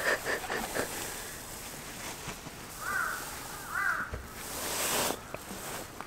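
A crow cawing twice, about a second apart, followed by a brief rustle of a padded down jacket as a plastic water bottle is tipped up to drink.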